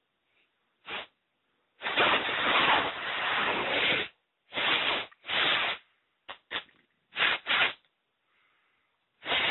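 Can of compressed air (Clean Safe Dust Remover) sprayed through its straw into a laptop's cooling fan and heat sink to blow out built-up dust. It hisses in about nine bursts: a brief puff, one long spray of about two seconds, then shorter bursts, with a last longer one near the end.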